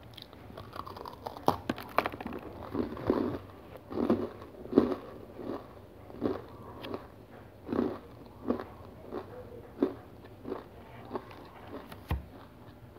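Biting into a crunchy black sesame and whole-grain cereal bar, with a couple of sharp cracks, then steady crunchy chewing at about one to two chews a second that grows softer toward the end. A short low thump near the end.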